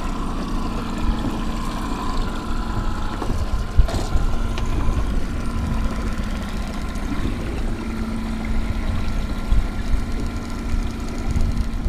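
Boat motor running steadily at trolling speed, a continuous hum over a low wind rumble, with a single knock a little before four seconds in.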